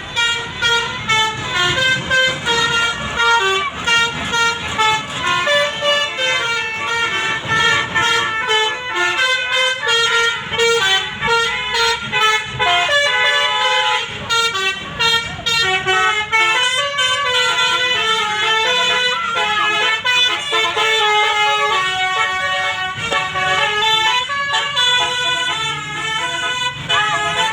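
Bus 'telolet basuri' musical air horn playing a fast melody of many short notes that step up and down with brief gaps, over a low rumble.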